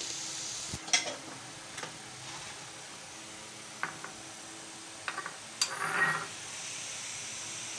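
Light knocks and clinks of a glass bowl and green chillies against an aluminium pressure cooker as the chillies are tipped in, the sharpest about a second in, with a short scraping rustle about six seconds in, over a steady low hum.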